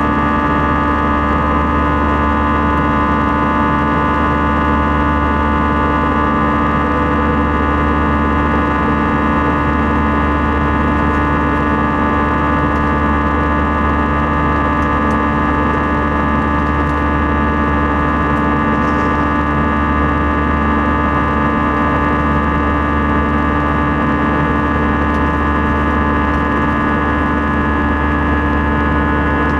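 Airbus A320 turbofan engines at climb power with the buzzsaw sound: many steady tones held together over a deep cabin drone, unchanging throughout.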